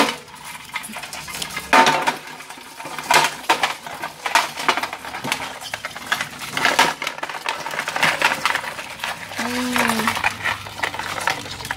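Dishes and cutlery being handled: an irregular run of clinks and knocks, a few of them sharper and louder.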